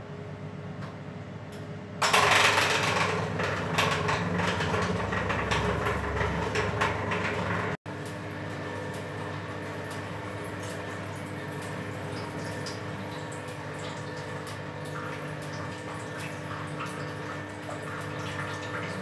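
Electric juicer running on fresh oranges, its motor humming steadily as orange pieces are pressed and juice runs out. A louder, noisier stretch of crushing starts about two seconds in and breaks off abruptly just before eight seconds, after which the steady motor hum carries on.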